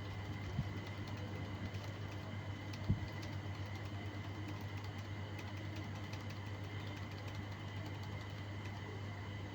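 A steady low hum with a thin high whine above it, with faint ticks and two soft thumps, one well under a second in and one near three seconds in.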